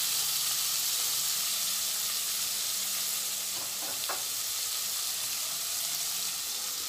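Chicken pieces with onion and garlic sizzling steadily in hot oil in a pot as they begin to brown, stirred with a wooden spoon, with a couple of faint knocks about four seconds in.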